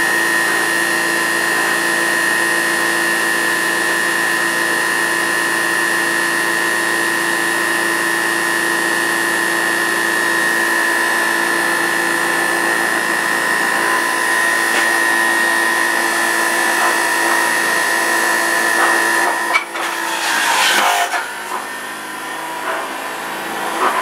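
Electric juicer motor running with a steady whine while juicing vegetables. About twenty seconds in the whine stops, with a brief clatter, and the sound drops to a lower level.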